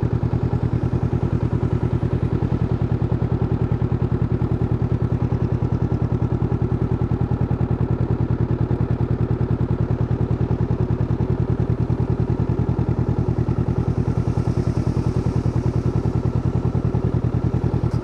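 Honda CB500F's 471 cc parallel-twin engine idling steadily through its stock exhaust, an even, unchanging pulse.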